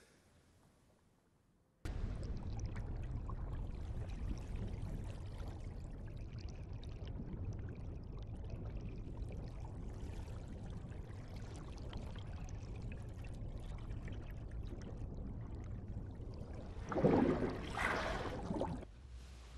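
Faint room tone, then about two seconds in a sudden cut to the muffled, churning rush of water heard from underwater. Near the end there is a louder burst of bubbling as a stream of air bubbles rises past.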